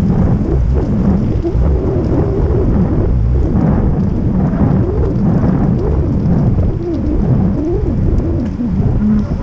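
Wind buffeting the microphone of a camera on a moving bicycle: a loud, continuous low rumble with a shifting, wavering tone.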